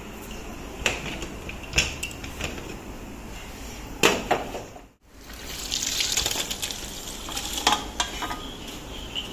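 Metal cookware clanking as a pressure cooker full of cooked trotter curry is handled on a gas stove and tipped over to empty it into another pot. There are a few sharp clanks, and a hissing rush a little past halfway.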